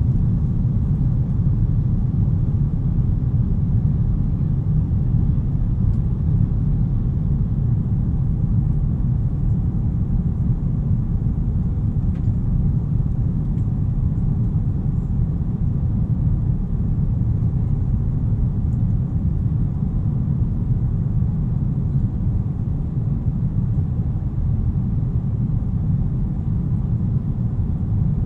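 Steady low rumble of a jet airliner's engines and rushing air, heard from inside the passenger cabin during takeoff.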